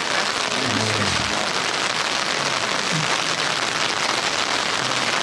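Steady rushing noise of rain and running water on a wet campsite, with a brief low voice about a second in.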